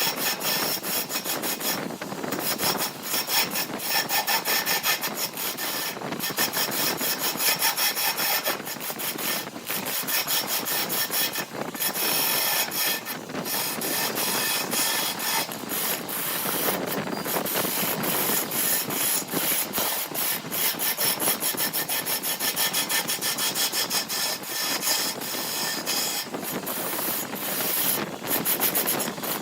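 A hand tool rubbing and scraping on wood in rapid, continuous strokes.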